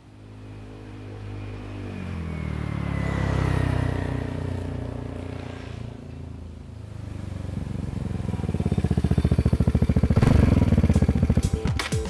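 Vespa GTS scooter's single-cylinder four-stroke engine through a VRX exhaust with its dB killer fitted, riding past: it rises to a peak about three and a half seconds in with a falling pitch, fades, then swells again as the scooter comes back and slows, with a rapid even exhaust beat near the end.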